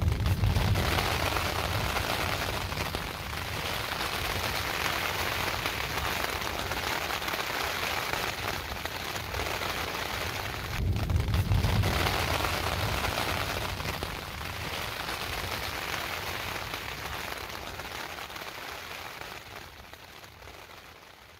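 Steady rain with thunder rumbling, once at the start and again louder about eleven seconds in. The sound fades out near the end.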